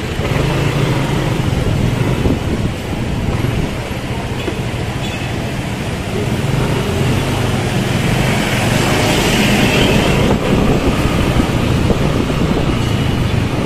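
A motor vehicle engine running steadily under way, over the general rumble of street traffic.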